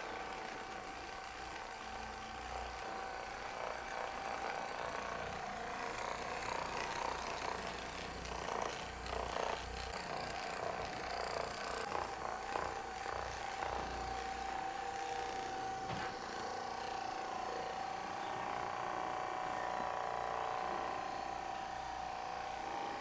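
A small electric motor running steadily with a constant whine, with a few faint knocks partway through.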